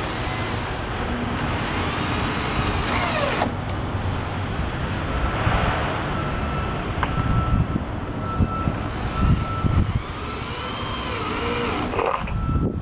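Cordless drill boring a pilot hole through a pressure-treated 2x4 into a post, its motor whine rising and falling in pitch as the trigger is eased and squeezed, over a steady low rumble.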